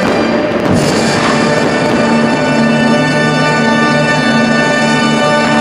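Orchestral music swelling on a long held chord, with one sharp crack about a second in.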